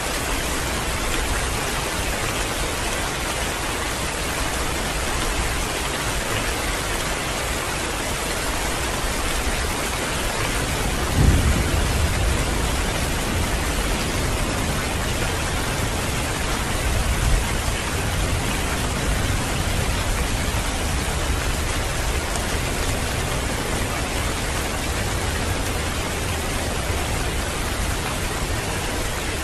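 Heavy rain falling steadily, with a clap of thunder about a third of the way in that rumbles on for a few seconds, and a second, shorter low rumble of thunder a few seconds later.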